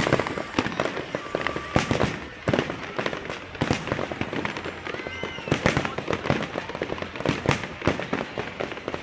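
Aerial fireworks display: a rapid, dense run of bangs and crackling bursts, one after another with no let-up.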